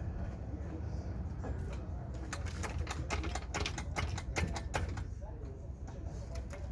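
A run of rapid, irregular clicks from hand work on the Jimny's rear axle parts, starting about a second and a half in and lasting about three seconds, over a steady low rumble.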